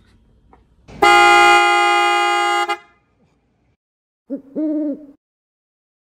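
Owl Super Bass PIAA horn on a Mercedes Sprinter van sounded in one steady blast of nearly two seconds, loud and deep. A recorded owl hoot follows near the end.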